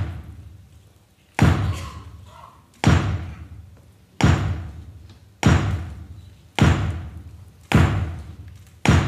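A hammer striking a rock in a steady rhythm, a heavy blow a little more than once a second. Each blow rings out in a long echo in the hall.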